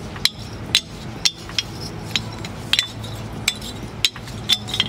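Pieces of mangrove binchotan white charcoal knocked together by hand: about a dozen sharp clinks at irregular spacing, roughly two a second, each with a short metallic ring. The iron-like ring is the mark of this hard charcoal, burned in a steel kiln.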